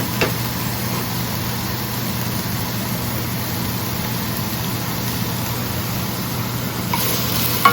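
Chopped onion, pepper and garlic sautéing in a frying pan: a steady sizzle over a steady low hum, with a short tap of a utensil just after the start.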